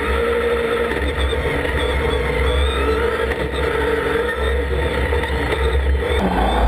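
Dacia Duster No Limit race car's engine heard from inside the cockpit while racing uphill, running hard with its pitch rising and falling as the driver works the throttle, over a steady deep rumble. The sound changes about six seconds in.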